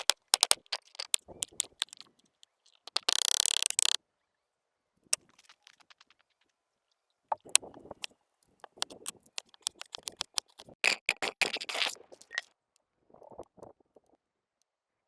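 Food-preparation handling sounds: a run of sharp clicks, knocks and scrapes, with a short dense rattle about three seconds in and a thick cluster of clicks near the end.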